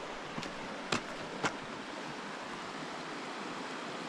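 Shallow river rushing steadily over rocks below, with three short light taps about a second in, as small items are set down on a metal guardrail.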